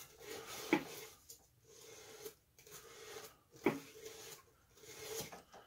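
Wire brush scraping along a wooden dowel in repeated rasping strokes, about one a second, with two sharper clicks, distressing the wood to put grain texture into it.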